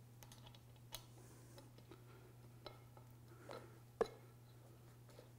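Faint clicks and taps of small metal parts being handled as a needle-bearing cap is fitted onto the pin of a ball-and-trunnion U-joint. There are a few scattered clicks, the sharpest about four seconds in, over a low steady hum.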